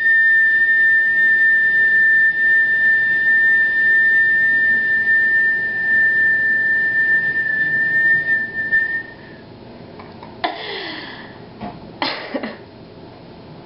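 A person whistling one long, steady, high note, held for about nine seconds. Then a couple of short bursts of laughter.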